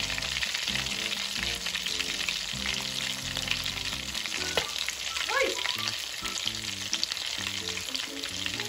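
Chicken pieces shallow-frying in hot oil in a steel pan: a steady, dense sizzle full of small crackles and pops as the skin crisps, with the chicken nearly done.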